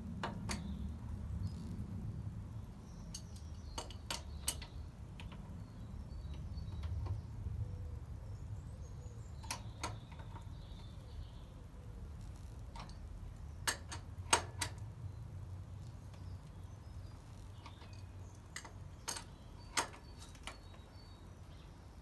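Spanner working the rear axle nut of a motorcycle: sharp metal clicks every few seconds, often two or three close together, as the spanner is turned and refitted on the nut. A low steady rumble runs underneath.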